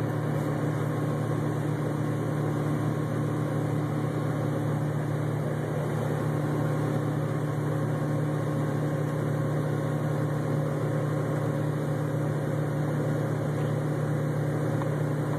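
John Deere 9670 STS combine running steadily with its unloading auger swung out: an even, low machine hum that does not change.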